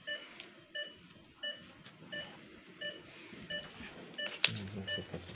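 Operating-room patient monitor beeping steadily, a short electronic beep a bit under two times a second, following the patient's pulse. One sharp click a little past four seconds in.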